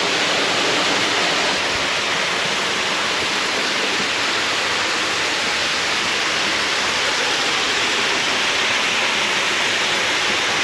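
Waterfall pouring down close by, a loud steady rush of falling water.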